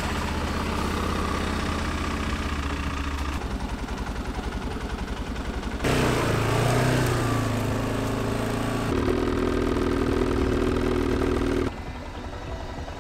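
Arctic Cat ATV on snow tracks with its engine running at idle, then revving louder about six seconds in as it pulls away. Near the end the sound drops to a quieter, steady drone.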